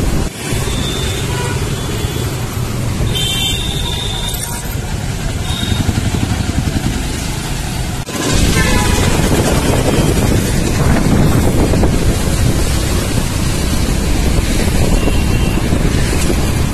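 Riding a motorcycle through town traffic: steady wind and engine noise, with short horn honks from traffic, the clearest a few seconds in.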